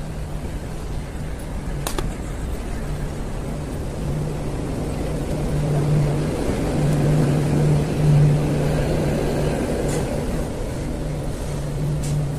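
Indian Railways passenger train running along the track, heard at an open coach door: a steady rumble of wheels on rails under a low hum that swells midway. A few sharp clicks stand out, about two seconds in and twice near the end.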